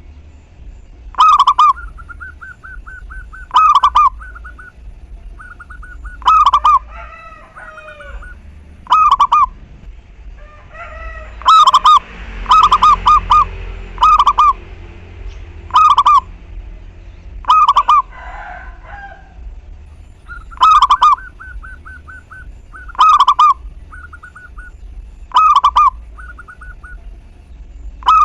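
Zebra dove calling repeatedly: a loud, short call about every two seconds, with a quick run of four near the middle. Fainter rapid trilling from other birds sounds between the calls.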